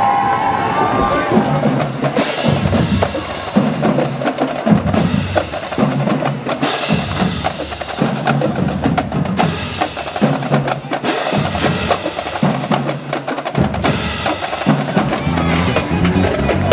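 Marching band drumline playing a cadence: rapid snare strokes and rolls over repeated bass drum beats.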